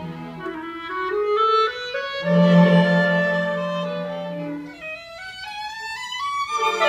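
Chamber ensemble of violins, cello, clarinet and harp playing classical music live. The strings climb in quick rising runs about a second in and again near the end, with a held low note in between.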